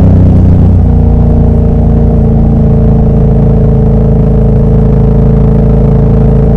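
Motorcycle engine through a Toce full exhaust system, running loud at a steady speed. The pitch settles slightly lower about a second in, then holds even.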